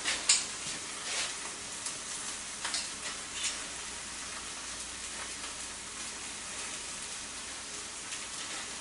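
Food sizzling in a hot pan, a steady hiss, with a few light clicks of utensils against the pan in the first few seconds.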